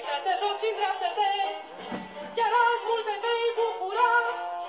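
Interactive talking Mickey Mouse plush toy playing a song with singing through its small built-in speaker, a melody of changing notes. A low thump comes about two seconds in.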